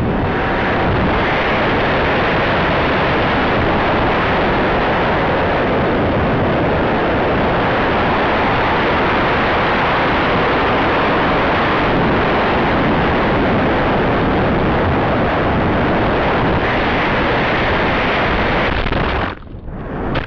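Steady rush of air over the onboard camera microphone of a Bixler FPV plane coming down, with no motor whine. Near the end the sound dips, rises in a short burst as the plane hits the ground in grass, then drops away.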